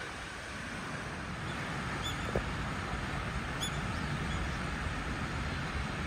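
Steady outdoor background rumble and hiss, with a few faint, short high chirps from birds about two and three and a half seconds in.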